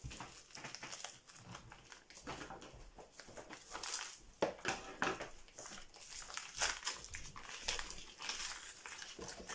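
Plastic packet of frozen cream being crinkled, cut open with scissors and peeled off the frozen block: irregular crackling and rustling.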